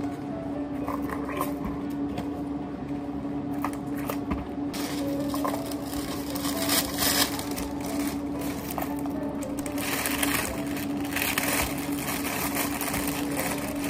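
Thin plastic film and a plastic carrier bag crinkling and rustling as two takeaway iced-drink cups are handled and bagged, loudest from about ten to twelve seconds in. A steady low hum runs underneath.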